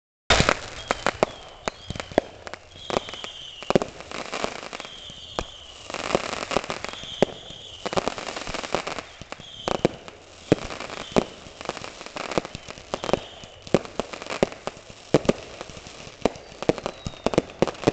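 Fireworks going off close by: a dense string of sharp bangs and crackles, with short falling whistles about once a second through most of it.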